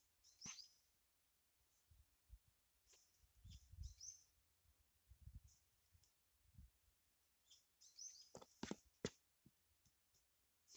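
Near silence with faint, scattered sounds of a gloved hand working potting soil around a plant in a plastic planter box: soft rustles and a few sharp clicks about eight to nine seconds in.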